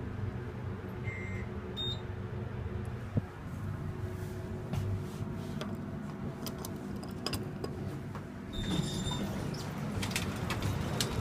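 Westinghouse elevator car reaching the lobby, with a steady low hum from the car and its machinery. Two short high beeps come a second or two in, and light clicks follow. About eight and a half seconds in the doors slide open with another short tone, and the sound opens out.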